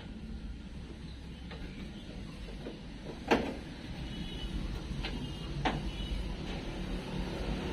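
Mitsubishi L300 door lock mechanism being refitted by hand inside the steel door shell: a few scattered metallic clicks and knocks, the loudest a sharp knock about three seconds in, over a low steady hum.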